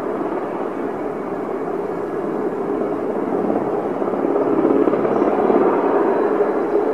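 Helicopter in flight, heard from a distance as a steady rotor and engine noise that grows louder about four seconds in.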